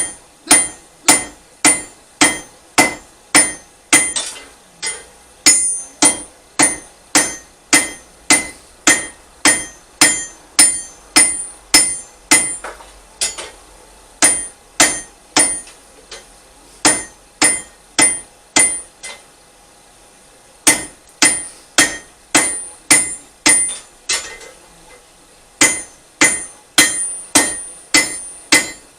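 Blacksmith's hand hammer striking steel on an anvil: steady, ringing blows about two a second, in runs that break off for a second or so a few times.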